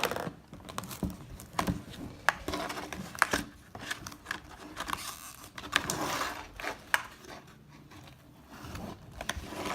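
Toy packaging being opened by hand: crinkling and rustling wrappers, with scattered sharp clicks and scrapes of the box and its contents.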